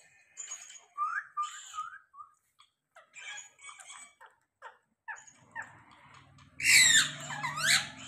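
Rose-ringed parakeet giving short chirps and squawks, then a loud screech with sweeping pitch near the end. A low steady hum runs underneath during the last few seconds.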